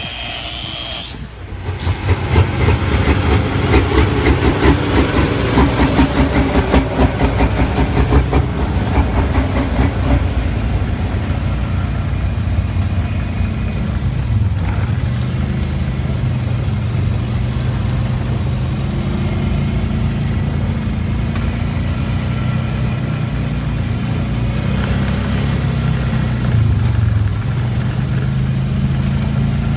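A pulling tractor's engine running loud, with rapid firing pulses for the first several seconds, then settling into a steadier run whose pitch wavers up and down.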